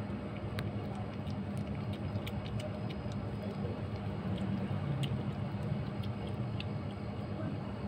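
Kitten crunching dry kibble from a plate: faint, irregular little clicks over a steady low hum.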